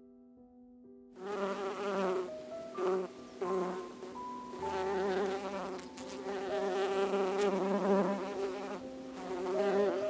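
Honey bees buzzing, starting about a second in, in uneven swells with a wavering pitch, over soft piano music.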